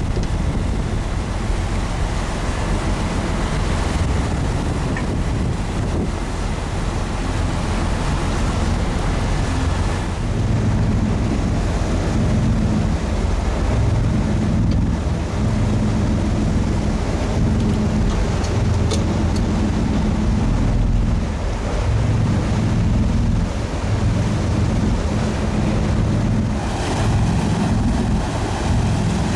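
Commercial fishing boat's engine running steadily under way while trolling, with water rushing past the hull and wind buffeting the microphone.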